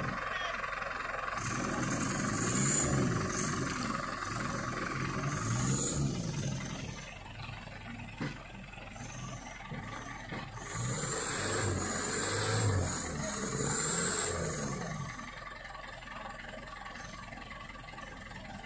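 Diesel engine of a loaded four-wheel-drive palm-fruit truck revving up and down as it churns through deep mud, in two long surges with a quieter stretch between them.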